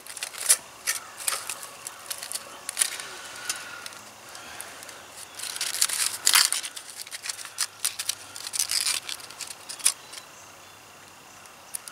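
Aluminum foil crinkling and crackling in irregular handfuls as foil packets are pulled off and unwrapped by hand, busiest about halfway through.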